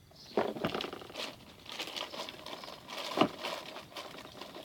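Plastic bag crinkling and rustling as grooming brushes are handled inside it, with a few sharp knocks of the items against each other or the plastic box.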